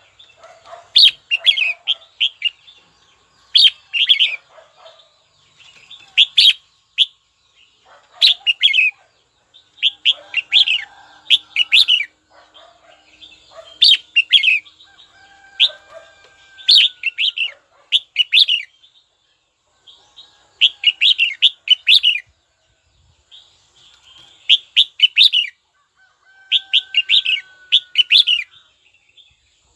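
Red-whiskered bulbul calling: short bursts of quick, bright chirpy notes, repeated every two to three seconds.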